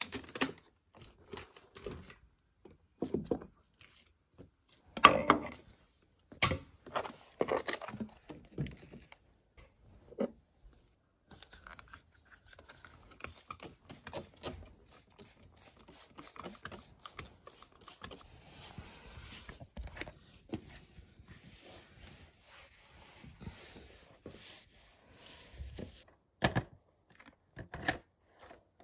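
Close household-cleaning handling noise. First comes a run of sharp knocks, clicks and clatter as things are picked up and set down. Then a long stretch of soft, even rubbing and wiping, and a few sharp knocks near the end.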